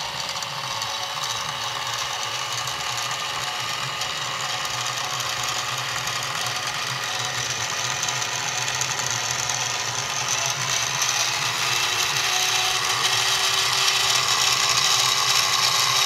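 Harbor Freight 44991 mini milling machine's spindle motor and gear head running, with a 1/8-inch end mill plunging into aluminum. The running grows louder in the second half, with a tone rising slightly about ten seconds in.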